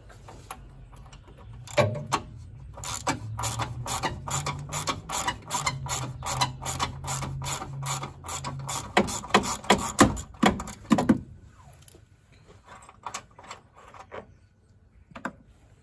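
Hand socket ratchet clicking quickly and evenly, about five clicks a second, as a bolt is run out. The clicking stops about eleven seconds in, and a few scattered clicks and taps follow.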